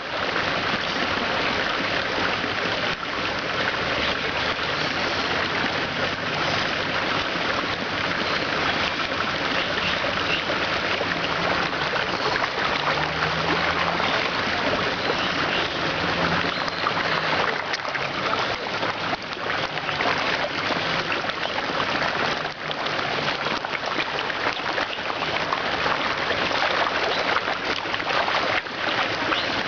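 Water splashing and churning continuously as a mass of large koi thrash at the surface in a feeding frenzy.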